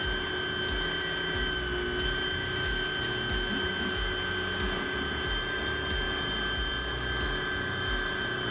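Xenon HPW410 electric high-pressure washer running, its pump motor giving a steady whine with a regular low pulsing under the hiss of the water jet spraying.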